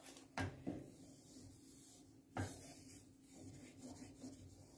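Wooden spatula stirring and scraping a thick, sticky starch modelling paste in a nonstick frying pan: faint scraping with a few soft knocks, twice in the first second and again about two and a half seconds in.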